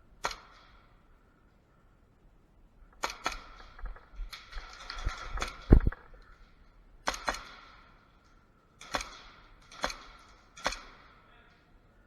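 Airsoft gas blowback pistol firing single shots, about eight sharp cracks at uneven intervals, some in quick pairs, each with a short echo. Midway there is a few seconds of scuffling noise ending in a heavy thud.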